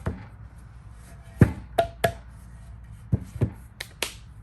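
About eight sharp, irregular taps and knocks of a hand tool or wooden parts against a wooden tabletop, the last two brighter and more clicking.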